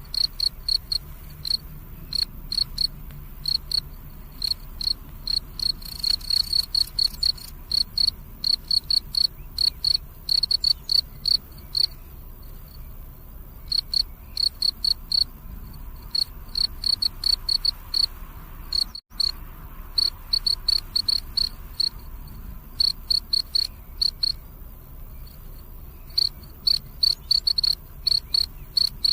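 Cricket chirping: a steady train of short, high-pitched chirps, about four a second, stopping for a second or two now and then.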